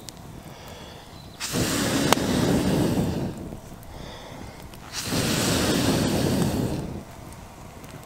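Air blown into a campfire's embers in two long whooshing breaths, each about a second and a half, fanning the wood fire into tall flames. A sharp pop from the fire comes about two seconds in.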